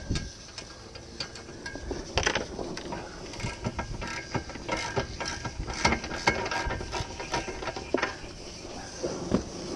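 Irregular metallic clicking and rattling of boat-trailer hitch hardware (coupler and hitch cable) being worked by hand at a car's hitch ball.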